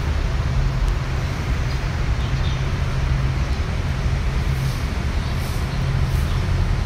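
Steady road traffic noise: a continuous low rumble with an even hum from the vehicles on the street.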